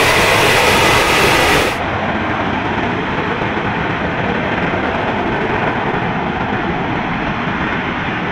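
Lockheed Martin F-35B's Pratt & Whitney F135 jet engine running at high power as the jet hovers on its lift fan, a loud steady rushing noise. About two seconds in, the sound drops a little and turns duller, as it passes to a second recording of the same hover.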